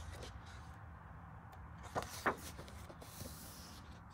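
Quiet room tone with a steady low hum and two soft, brief taps about two seconds in.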